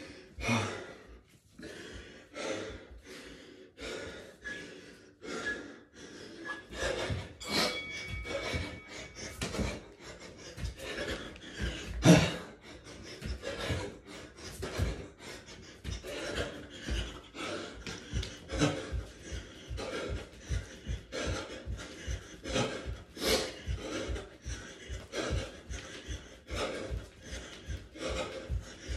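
A man panting hard from the exertion of burpees, a heavy breath every second or so, while jogging on the spot with his feet thudding on the floor. One sharper, louder knock about twelve seconds in.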